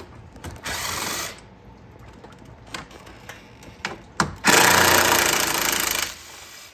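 Cordless power tool with a long socket extension running out bolts: a short run under a second, then a longer run of about a second and a half, with a few sharp metal clicks between.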